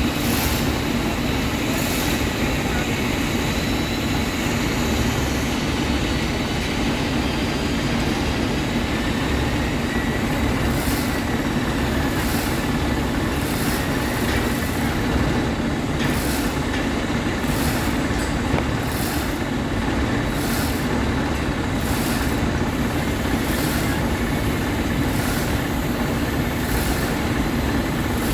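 A crane's engine running steadily at work, a continuous low drone. Short, faint high-pitched ticks or hisses recur every second or so, more often in the second half.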